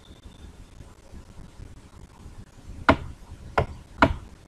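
Three sharp taps in the second half, from a stylus striking a tablet screen while handwriting on screen.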